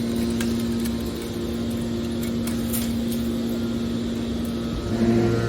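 Metal wire baler machine running with a steady hum, a few faint clicks over it; near the end the sound shifts and grows a little louder.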